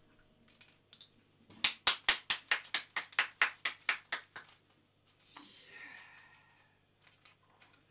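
A rapid, even run of sharp clicking taps, about six a second for nearly three seconds and fading, from small objects worked by hand on a tabletop. A brief rustling scrape follows.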